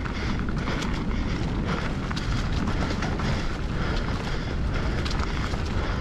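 Hardtail mountain bike rolling fast over dirt singletrack strewn with dry leaves: a steady tyre rumble with wind rushing on the microphone, and frequent sharp clicks and rattles from the bike over bumps.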